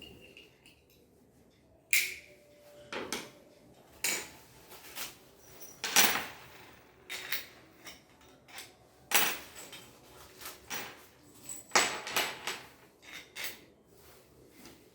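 Irregular clatter of hard objects being handled and set down: a string of sharp knocks and taps, the loudest about two, six, nine and twelve seconds in.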